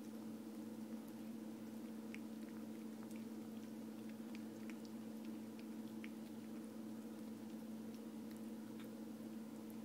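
A cat chewing a noodle: faint, short clicks come at irregular intervals, over a steady low hum.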